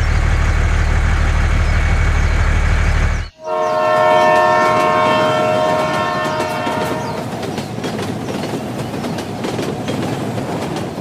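A steady low mechanical rumble cuts off suddenly about three seconds in. A loud horn blast of several held tones together follows and lasts about three seconds, then gives way to a fast, even clattering.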